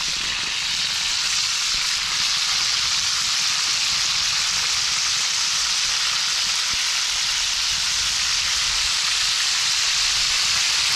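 Bacon-wrapped spruce grouse strips sizzling steadily in hot bacon grease in a cast iron skillet.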